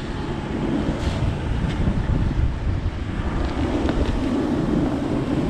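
Off-road vehicle's engine running under load, with heavy low rumble on the microphone; a low drone grows stronger in the second half.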